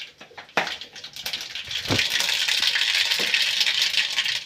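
Mustard seeds spluttering and popping in hot coconut oil in a kadai. The dense crackle starts with a sharp pop about half a second in and grows louder and thicker from about two seconds in.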